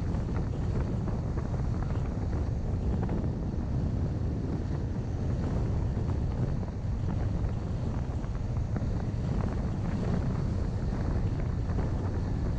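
Wind buffeting the microphone over the steady low rumble of a car driving along the road.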